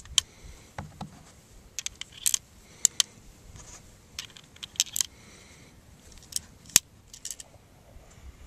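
Nagant M1895 revolver being handled: a dozen or so sharp metallic clicks and clinks at irregular spacing, the sharpest a little before the end.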